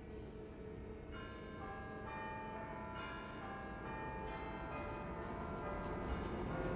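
Church bells ringing: from about a second in, strikes of different pitch come in one after another and ring on together, over a low steady rumble.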